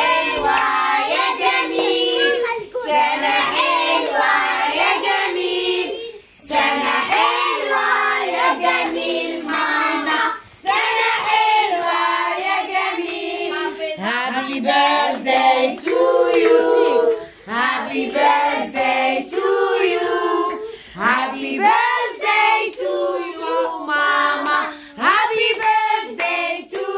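A group of voices, children's among them, singing together, with hands clapping along.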